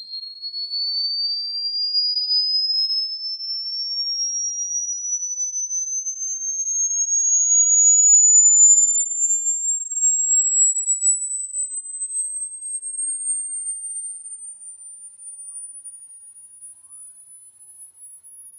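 A single electronic sine tone that starts suddenly as a high whistle and slides smoothly and steadily upward in pitch to a very high whine. It is loudest about halfway through and grows fainter near the end. The tone is a synthetic high-pitch sweep played as a rodent-repellent sound.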